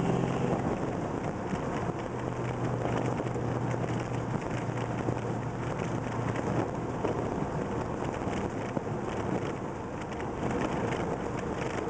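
The 1969 Plymouth Road Runner's 440 V8 running on the move, heard from inside the cabin together with road and wind noise. The steady engine tone eases off about half a second in, leaving mostly an even road and wind noise with the engine underneath.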